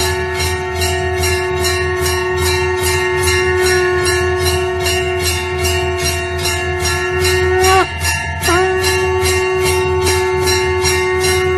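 Shankh (conch shell) blown in one long, steady note that drops in pitch and breaks off about eight seconds in, then starts again a moment later. Under it a temple bell is rung in a fast, even rhythm of about three strokes a second.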